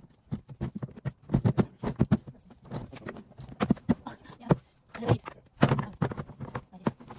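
Irregular knocks and clicks of a black plastic garden storage box being put together, its lid and panels bumping and snapping against each other as they are handled and fitted.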